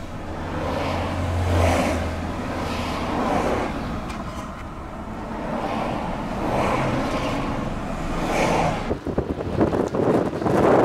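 Road and engine noise heard inside a moving car's cabin, a steady low hum with a rushing sound that swells every second or two. Near the end it gives way to gusty wind buffeting the microphone.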